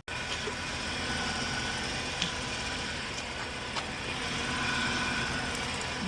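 Hyundai Santa Fe's V6 engine idling steadily, with the new power steering pump and drive belt fitted.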